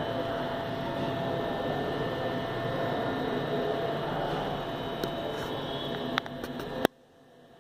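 Steady background room noise with a faint steady hum, broken by a few light clicks. A sharp click near the end, after which it cuts to a faint hiss.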